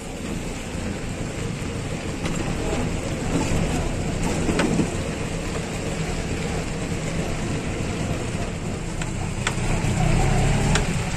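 Motor vehicle driving on a wet road, heard from inside: a steady low engine hum with tyre and road noise and a few sharp ticks.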